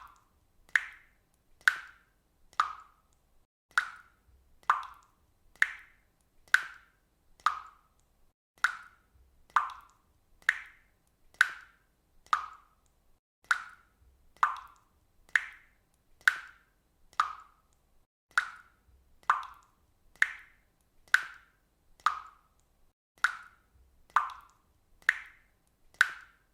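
Water dripping at a steady, even pace, about one drop a second. Each drop is a short, sharp plop with a brief pitched ring.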